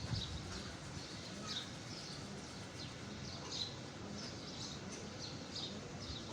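Small birds chirping: many short, high chirps repeating irregularly, over a low background rumble.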